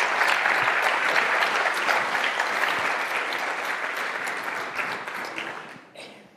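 Audience applauding, a dense steady clapping of many hands that dies away near the end.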